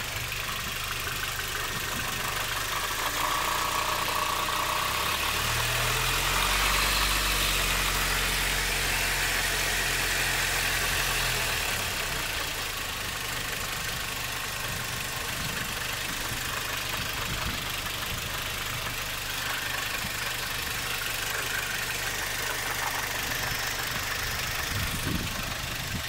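Audi A4 B6's 2.0 ALT naturally aspirated petrol four-cylinder idling. About five seconds in, the revs rise by themselves and the engine runs higher and louder for about six seconds before dropping back to idle. This is the unprompted idle surge whose cause the owner is asking about.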